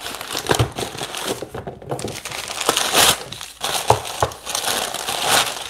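Thin packing paper crumpling and crinkling in irregular bursts as a saucer wrapped in it is pulled from a cardboard box and unwrapped.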